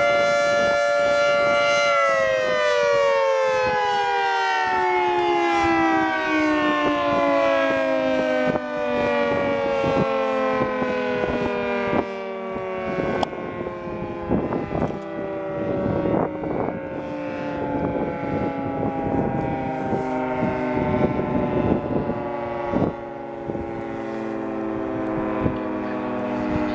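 Federal Signal 2T22 dual-tone outdoor warning siren winding down at the end of its test: its chord of tones is held steady, then about two seconds in all the tones start falling together in a long, slow glide as the rotors coast down. Short knocks and rustles come and go over the siren from about eight seconds in.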